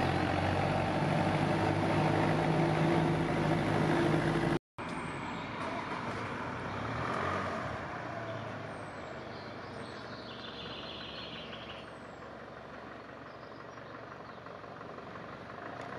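A motor vehicle's engine runs with a steady hum for the first four seconds or so. It stops abruptly, giving way to quieter outdoor background noise with a few faint, high, short chirps.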